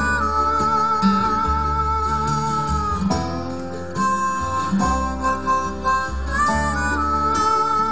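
Background music: a harmonica playing long held, bending notes over guitar, the same phrase heard twice.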